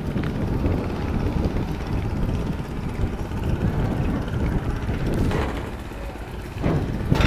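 Small fishing boat's diesel engine idling at the quay, a steady low rumble, with a couple of brief knocks about five seconds in and near the end as someone boards.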